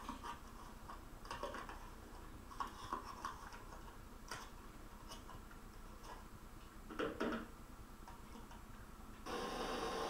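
Light clicks and knocks of plastic and metal as beaters are handled and fitted into the sockets of an electric hand mixer, with a louder pair of knocks about seven seconds in. About nine seconds in, a steady noisy hum starts suddenly.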